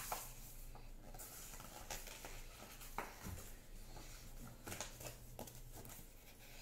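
A few faint rustles and light taps as a picture book is handled and opened, over a low steady room hum.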